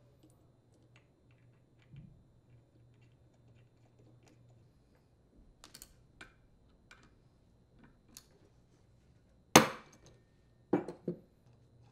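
Small metal clicks and clinks of a flywheel puller and its bolts being fitted and threaded onto a Husqvarna leaf blower's flywheel. Near the end comes one loud metallic knock, then two smaller ones.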